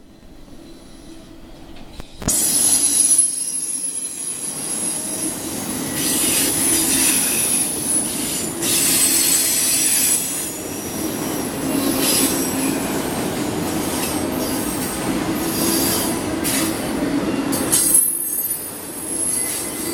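Freight train of autorack cars rolling past, steel wheels on rail with high-pitched wheel squeal that comes and goes over the rumble. Quieter for about the first two seconds, then louder.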